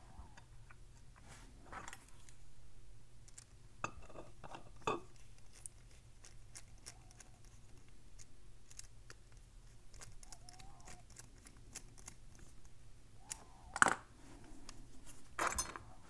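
Faint small metallic clicks and ticks as the lock cylinder's parts are handled and two small screws are turned back into it with a small screwdriver. A few sharper clicks come through, the loudest near the end.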